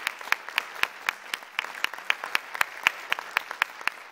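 Audience applauding, with one person close by clapping steadily about four times a second over the general applause.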